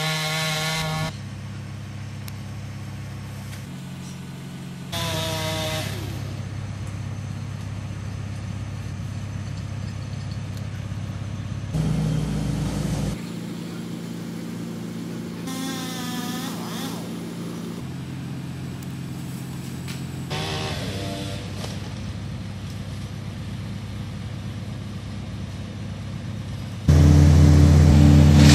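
Two-stroke chainsaw idling, with several short revs of the throttle, then running much louder and steadily near the end.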